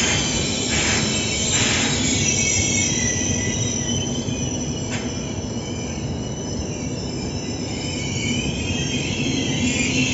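Intercity passenger train rolling slowly along the platform, its steel wheels squealing steadily over a loud rumble, with a single click about halfway through.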